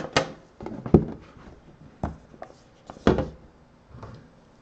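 Handling of a lidded trading-card box: a few sharp knocks and clacks as hands work the lid, the loudest about one second and three seconds in, with light rubbing between.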